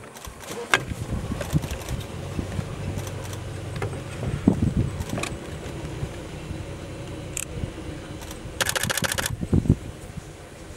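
Low steady rumble with scattered knocks and clicks, and near the end a rapid burst of camera shutter clicks lasting under a second.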